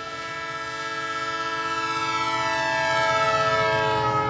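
Train whistle sounding one long, multi-note chord that grows louder; from about halfway through part of the chord slides down in pitch as the train passes.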